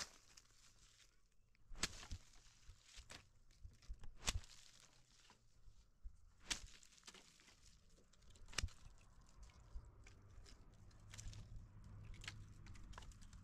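Faint, irregular cracks and crunches, with a sharper crack every second or two among many smaller clicks.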